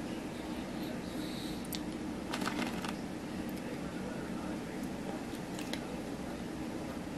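Soft eating and food-handling sounds close to the microphone as a french fry is picked up and eaten: scattered small clicks, with a short burst of crinkling clicks about two and a half seconds in, over a steady low hum.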